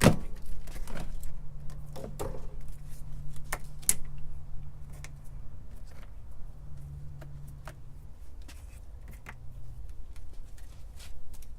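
Scattered sharp clicks and light metallic rattles of screws and small angle brackets being worked loose and handled while removing an RV refrigerator sidewall vent, over a faint steady low hum.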